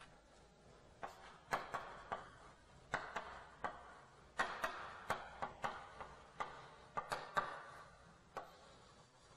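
Chalk writing on a blackboard: a string of sharp, irregular taps and short scratchy strokes as letters are written, with brief pauses between groups.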